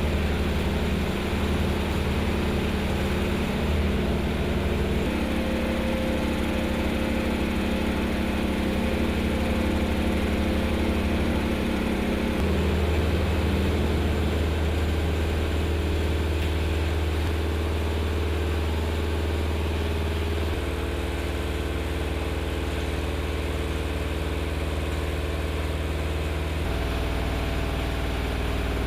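Steady drone of engines or machinery running, with a constant pitch that jumps abruptly to a different hum four times.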